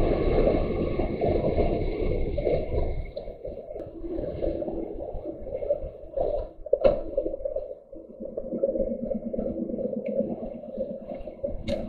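Lorry cab noise on the move: a steady low rumble of the engine and road. It drops noticeably about three seconds in, and a short sharp click comes about two thirds of the way through.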